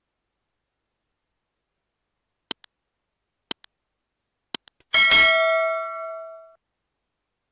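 Three quick double clicks about a second apart, then a bright bell-like ding that rings out and fades over about a second and a half: the click and notification-bell sound effects of a subscribe-button animation.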